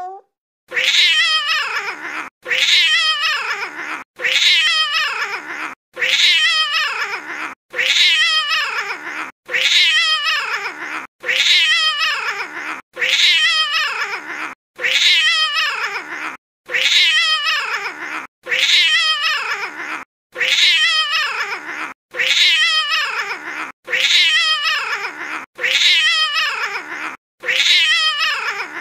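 Cat meows and caterwauling, several falling calls in a row, with the same stretch of about two seconds looped over and over and short gaps between repeats.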